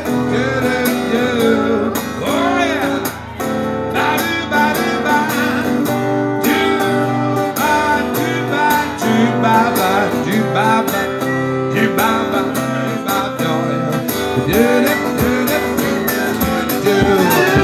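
Live acoustic band playing: an acoustic guitar strums a steady rhythm while a fiddle plays the melody, with a man's voice singing along at times.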